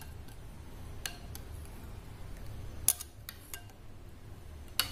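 Metal spoon stirring thick custard in a glass bowl, knocking against the glass in several sharp clinks that ring briefly. The loudest clinks come about three seconds in and just before the end.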